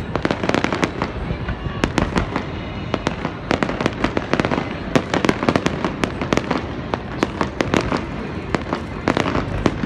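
Fireworks display: a dense, unbroken run of bangs and crackles, several sharp reports a second.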